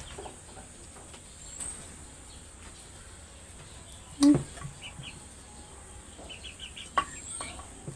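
Village yard chickens clucking faintly, with a quick run of short high chirps about six seconds in. A brief loud call about four seconds in and a sharp knock near the seven-second mark.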